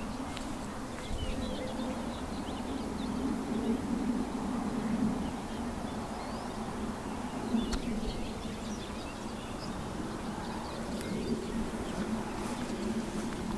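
Outdoor ambience of small birds chirping over a steady low buzzing hum, with a couple of soft low thumps.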